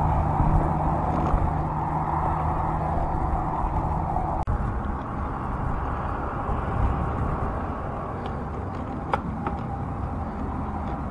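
Wind rushing over the microphone of a camera on a moving bicycle, mixed with tyre and road noise. A passing car's engine hum fades away over the first few seconds, and there are two light clicks near the end.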